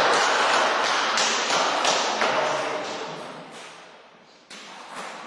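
Celluloid table tennis ball bouncing with sharp taps, about three a second, fading out about four seconds in. A shouting voice trails off in the first second.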